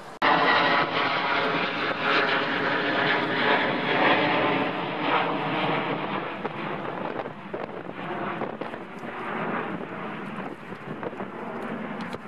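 Twin jet engines of a Boeing 757 airliner on final approach: a steady whine of several tones over a rushing roar. It cuts in suddenly just after the start, is loudest over the first few seconds, then eases somewhat.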